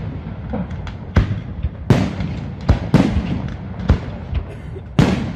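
Aerial firework shells bursting in a display: a run of sharp bangs, roughly one a second, over a continuous low rumble.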